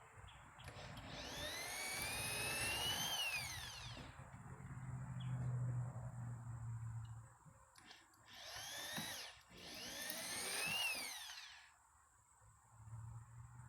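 Corded electric drill boring holes in wood. It runs three times: twice for a couple of seconds and once more briefly. Each time the motor's whine climbs as it spins up and drops as it winds down.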